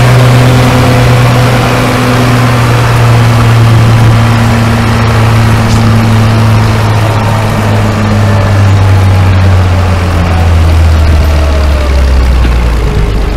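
Vintage tractor engine running hard under heavy load as it pulls a weight-transfer sled, its pitch falling slowly as the engine lugs down under the drag.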